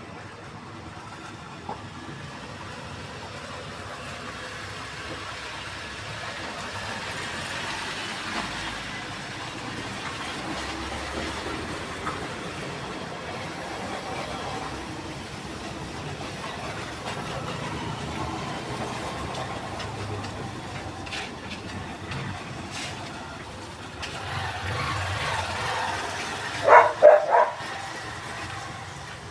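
Steady vehicle running noise that slowly swells and eases. A dog barks three times near the end.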